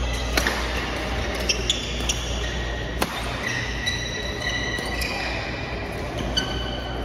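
Badminton rackets hitting a shuttlecock in a fast doubles rally: a string of sharp pops, with sports shoes squeaking on the court mat in between.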